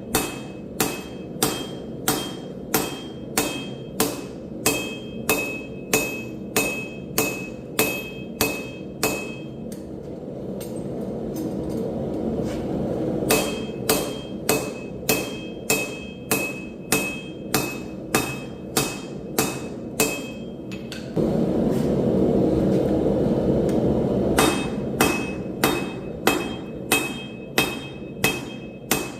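Hand-forging on an anvil: a hammer strikes hot steel in a steady rhythm of about one and a half blows a second, each blow ringing. The hammering pauses twice, about ten seconds in and again past twenty seconds, and a steady rushing noise fills each pause, louder the second time.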